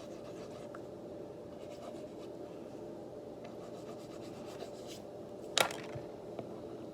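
Slime being cut and worked with a small tool: soft scratching and rubbing, with one sharp click about five and a half seconds in, over a steady hum.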